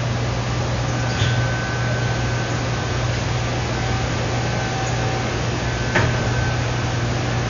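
A steady low hum over a constant hiss, with a faint high-pitched tone through the middle and a single click about six seconds in.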